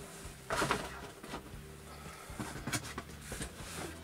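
Cardboard boxes and packaging being handled, rustling and knocking lightly, with a louder rustle about half a second in and a few sharp clicks near the end.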